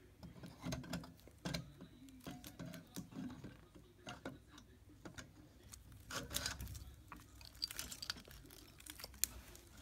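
Faint metallic clinks, light knocks and rattles from a cylinder head being handled and slid over the studs and cam chain onto the cylinder of a small four-stroke ATV engine.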